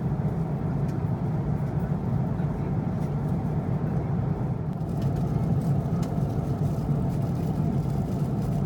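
Airliner cabin noise in cruise aboard an Airbus A330-300: a steady deep drone of engine and rushing air, unchanging throughout, with a few faint clicks now and then.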